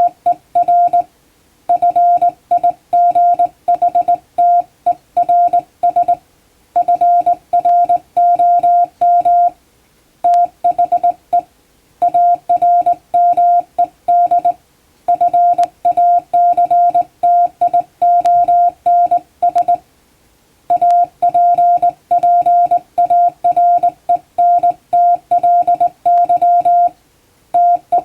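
Hand-keyed Morse code: a steady, mid-pitched beep switched on and off in dots and dashes, sending plain-language English text, with short breaks between words.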